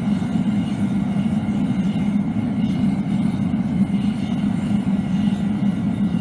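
Propane burner firing a foundry furnace, a steady low rushing rumble.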